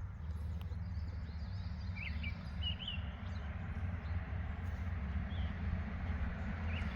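Steady rumble of road traffic passing in the distance, with a few short bird chirps about two seconds in and again near the end.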